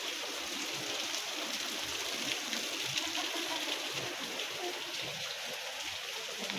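Steady sound of running water trickling, with faint steps on the wet trail now and then.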